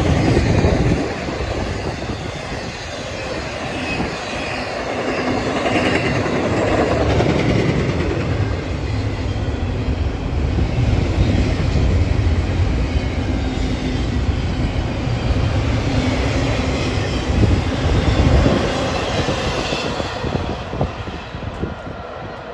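Cars of a long CSX intermodal freight train rolling past, with steady wheel-on-rail rumble and rapid clicking of wheels over the rail joints; the sound eases off over the last couple of seconds.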